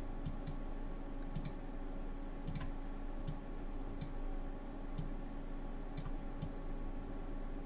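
Computer mouse clicking: about a dozen faint, irregular clicks, some in quick pairs, over a low steady electrical hum.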